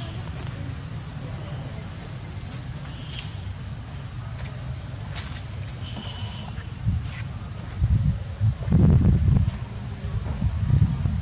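Steady high-pitched insect drone, with low rumbling noise underneath that grows into louder bursts about eight seconds in.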